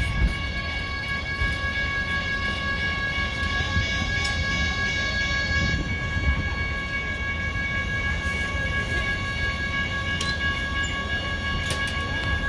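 Steady high-pitched electrical whine with several even overtones, holding one pitch throughout, over a low background rumble at a light-rail platform, with a few faint clicks.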